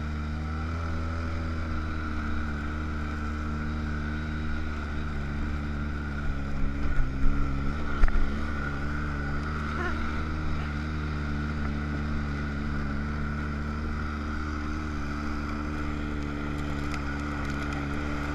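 ATV engine running at a steady speed, heard from a camera mounted on the quad, with a few short knocks about seven seconds in.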